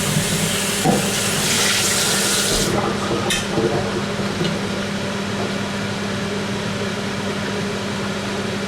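Chicken sizzling as it fries in a pan, a steady hiss that cuts off suddenly about three seconds in. After it, a steady low hum with a few light clicks.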